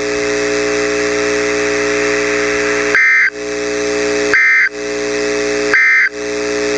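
Weather-radio broadcast after a tornado warning: a steady hum and hiss, broken three times, about 1.4 seconds apart, by short, loud, screechy data bursts. These are the Emergency Alert System SAME end-of-message code that closes the warning.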